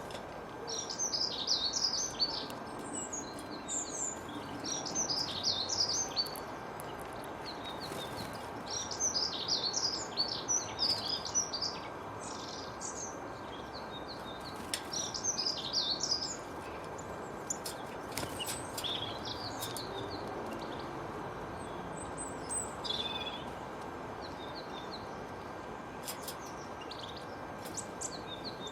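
Small songbirds chirping and twittering in quick bursts of high chirps, a run every few seconds, busiest in the first half and sparser later, over a steady background hiss with a faint steady high tone.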